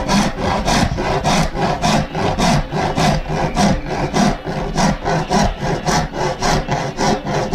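Wood rasp scraped back and forth in quick, even strokes across the glued wooden staves of a tumbadora (conga drum) shell, rounding its outside; about three strokes a second.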